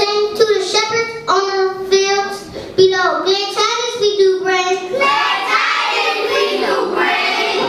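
A young girl singing solo into a microphone, a child's voice holding notes in short phrases. About five seconds in, the clear sung notes give way to a blurrier, noisier mix of sound.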